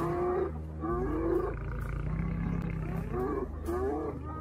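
Spotted hyenas calling: short, high calls that bend up and down in pitch, a few near the start, again about a second in and once more after three seconds, over a steady low growl.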